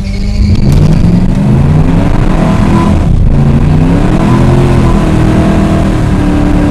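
A car or truck engine revving hard, its pitch climbing and dropping several times over a constant roar, typical of a burnout before a drag-strip launch.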